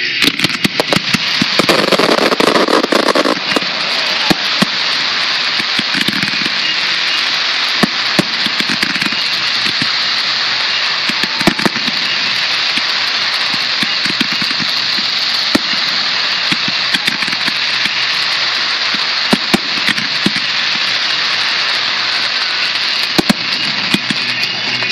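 Aerial fireworks going off in quick succession: a dense, steady crackle with many sharp single bangs scattered through it, and a louder flurry of bursts about two seconds in.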